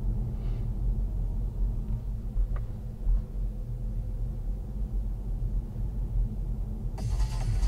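Steady low road and engine rumble inside a moving car. Electronic music cuts in abruptly near the end.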